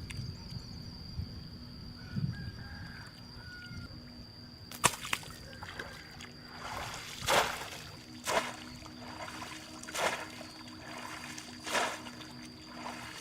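Water splashing in short bursts, about five splashes a second or two apart, over a steady high-pitched whine.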